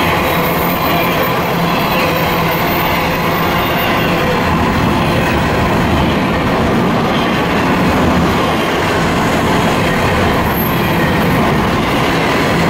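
Double-stack intermodal freight train's container well cars rolling past close by: a steady, loud rumble and clatter of steel wheels on the rails.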